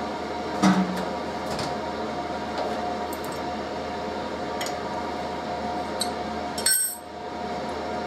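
Metal hand tools clinking and knocking on a steel mill table: a sharp knock about a second in, a few lighter clicks, and a loud bright ringing clink near the end. Underneath runs the steady hum of a workshop heater.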